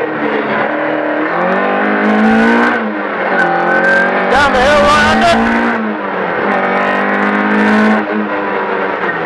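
Rally car engine heard from inside the cabin, accelerating hard: the pitch climbs, drops at a gear change and climbs again, then falls away near the end as the driver lifts off. Sharp knocks and rattles sound over it in the middle.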